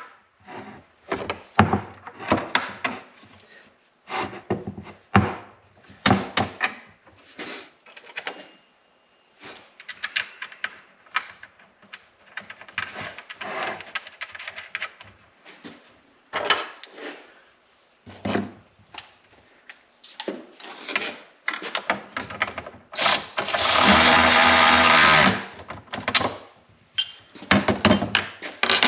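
Hand work on snowmobile ski hardware: many separate knocks, clicks and clatters of tools and metal parts. A power tool runs steadily for about two and a half seconds near the end.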